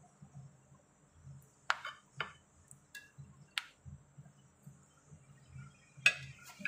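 Metal kitchen tongs clinking against a ceramic plate and a glass baking dish while pieces of roast chicken are moved across: about six sharp, separate clinks, the loudest near the end.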